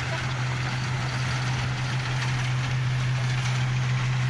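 Hino diesel engine of a rice-milling machine running steadily at an even speed, a deep constant hum with mechanical noise over it.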